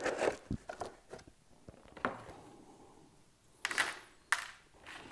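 Body clips being pulled and the plastic body shell of an RC truggy lifted off its chassis and set down: scattered light clicks and knocks, a louder rustle of the shell about three and a half seconds in, then a sharp click.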